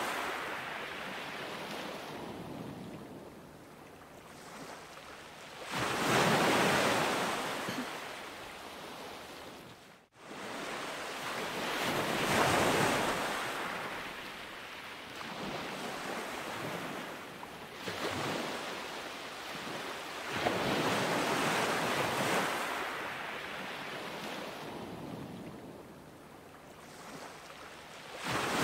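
Ocean surf: waves washing in and drawing back, swelling about every five to six seconds. There is a brief dropout about ten seconds in.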